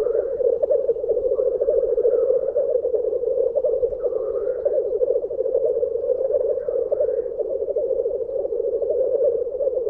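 Male black grouse lekking: the continuous bubbling, dove-like rookooing display song, a steady pulsing chorus, with a few fainter higher rising calls over it.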